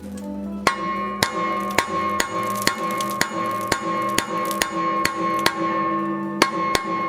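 Background music with a steady beat of sharp wood-block-like knocks, about two a second, over held tones.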